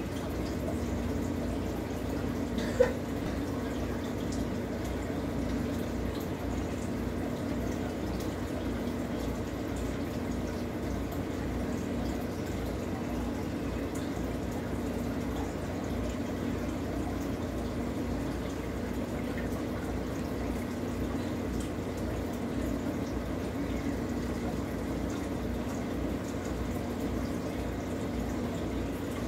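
Aquarium filter running: steady trickling, bubbling water over a steady low hum. One sharp click about three seconds in.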